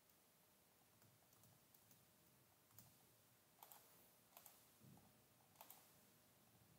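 Near silence broken by a handful of faint, scattered clicks from a computer keyboard and mouse in the second half.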